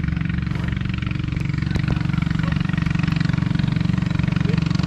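An engine running steadily, with a fast, even pulse and no change in speed.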